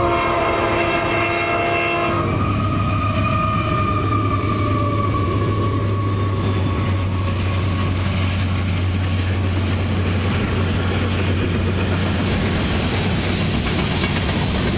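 A diesel freight locomotive's horn sounding a chord, cutting off about two seconds in. Then the lead diesel locomotives' engines run loud under the load of a full train, and a long line of loaded hopper cars rolls past with wheel clatter.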